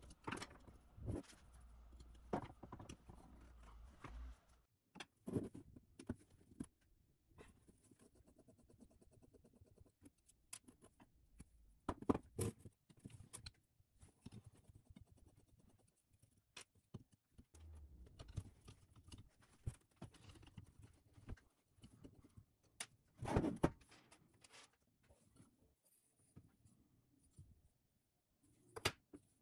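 Parts of a rusty cast-iron drill press vise being handled on a workbench: scattered light metal clicks and knocks, with a few louder clatters.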